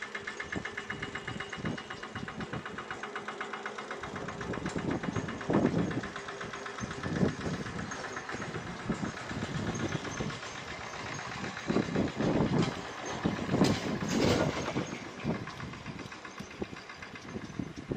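An engine running nearby with a fast, even, rhythmic beat. Louder bursts of rough noise come about six seconds in and again around twelve to fifteen seconds.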